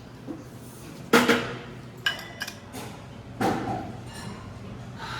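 Glassware and bar utensils knocking and clinking as a drink is mixed: a sharp knock about a second in, a few lighter clicks, then a ringing clink of glass.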